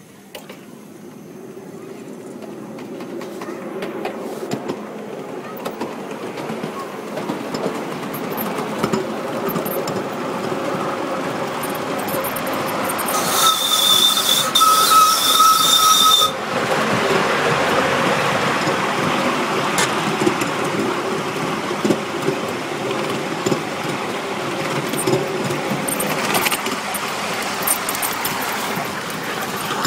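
5-inch-gauge miniature steam locomotive running on its track. Its running noise and wheel clatter build over the first few seconds and then hold steady. About thirteen seconds in the steam whistle sounds for about three seconds, one steady high tone and the loudest thing heard.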